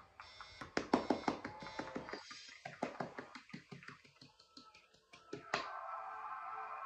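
One person clapping hands, a run of quick claps lasting about five seconds that then stops. A faint steady background sound comes in near the end.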